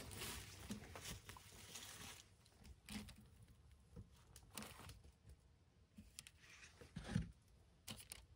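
Near silence with faint, scattered knocks and rustles at irregular times, the loudest knock about seven seconds in.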